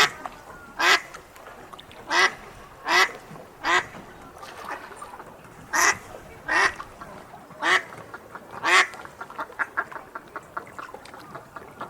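Ducks quacking: about nine loud single quacks at uneven intervals, then a quicker run of softer quacks near the end.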